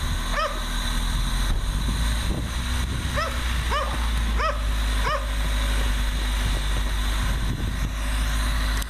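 A dog barking in short barks, once just after the start and then four times from about three to five seconds in, roughly two-thirds of a second apart. Under the barks runs the steady idle of a 1998 Honda Civic's 1.6-litre D16Y7 four-cylinder engine, running just after a cold start.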